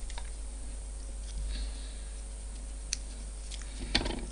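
A few light clicks and a soft knock near the end as small parts are handled at a bench vise, over a steady low hum.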